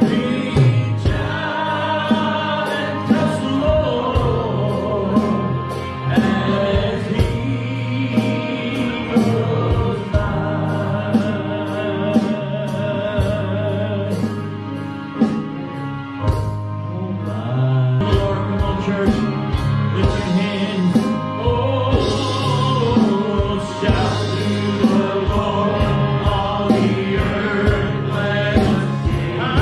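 Live gospel music: several men singing together at microphones, backed by keyboard, electric guitar and drums, with a steady beat.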